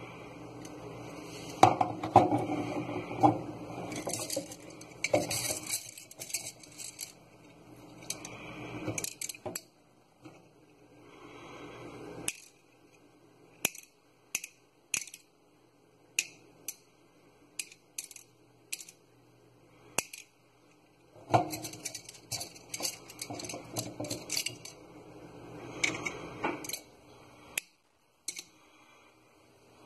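Small round candy beads pouring from one glass tumbler into another, rattling against the glass, with clinks of glass on a stainless steel sink. There are two runs of dense rattling a few seconds each, with scattered single clicks between them.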